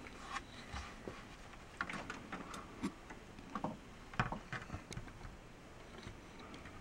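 Scattered faint clicks and light knocks, irregularly spaced, as a drum shell is handled and its badge grommet is seated onto the head of a ball peen hammer clamped in a vise.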